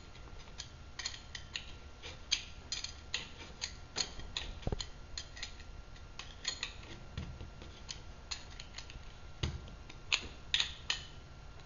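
Wrench turning a nut tight on the bolt through a small wheel and its aluminum side plate: a run of small, irregular metal clicks and ticks, a few a second, with a few sharper clicks near the end.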